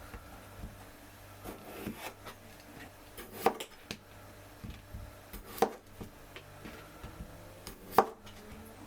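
Knife chopping on a wooden cutting board: sharp separate knocks, the three loudest about two seconds apart, with lighter taps between.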